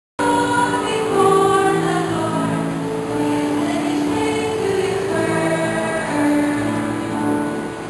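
A choir singing in several parts with long held notes, cutting in suddenly right at the start.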